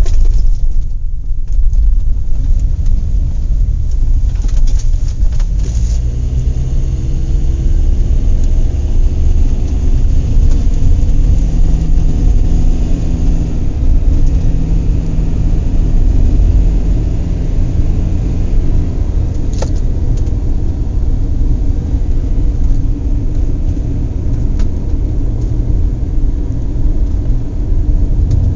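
A vehicle engine running with a heavy, steady low rumble. Its pitch shifts up and down for a stretch in the middle, and there is a single sharp click about two-thirds of the way through.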